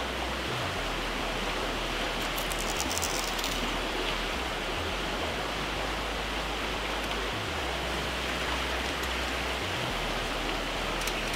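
Steady rushing of a swollen river running over rapids, an even hiss of moving water.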